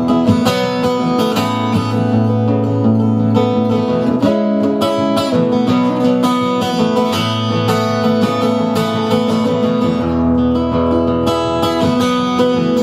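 Instrumental song intro: strummed acoustic guitar over a steady bass line, with no singing.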